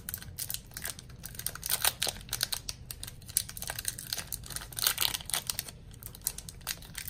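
Foil wrapper of a Pokémon trading card booster pack crinkling and tearing as fingers pull it open along the top, a run of irregular crackles.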